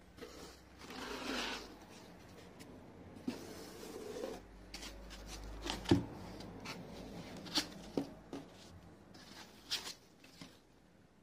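Foam packing inserts rubbing and rustling against a cardboard box as an Orange Bass Butler pedal is unpacked, with a run of sharp knocks and taps as the pedal and foam are set on a wooden table and handled; the loudest knock comes about six seconds in.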